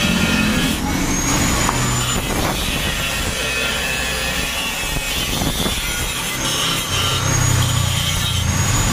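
A motor vehicle's engine running, louder in the first two seconds and again near the end, with a faint high whine over it.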